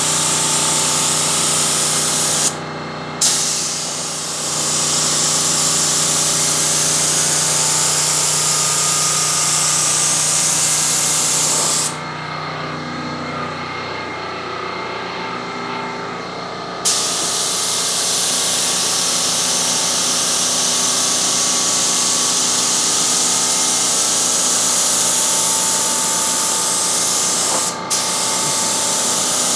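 Primer being sprayed onto a car door: a steady spray hiss that stops three times as the spray is released, briefly about two and a half seconds in, for about five seconds around the middle, and for a moment near the end. A steady machine hum runs underneath the whole time.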